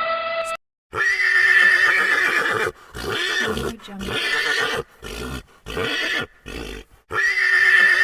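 Horse neighing: a long whinny with a wavering pitch, a run of shorter neighs, then another long whinny near the end.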